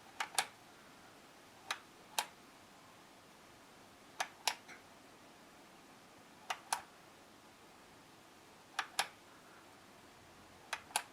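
Varilight push-on/off dimmer switch knob pressed six times, each press a sharp double click, about every two seconds: the LED lights being switched on and off three times to put the programmable dimmer into its setting mode.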